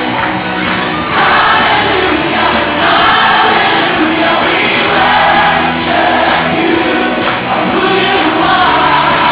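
Music with a choir singing in held phrases.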